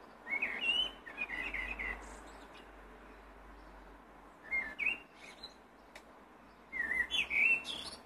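Blackbird singing: three separate warbled phrases of clear whistled notes, the last ending in a high, thin twitter that climbs sharply.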